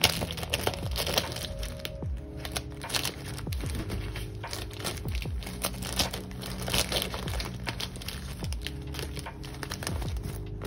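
Soft background music with held notes, over crinkling and light clicking of plastic, the sound of someone rummaging through a set of markers for a colour.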